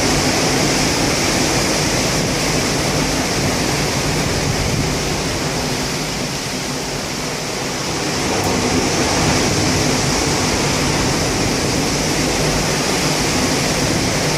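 Rough typhoon-driven sea: a steady, dense wash of breaking surf with wind, easing slightly for a couple of seconds midway.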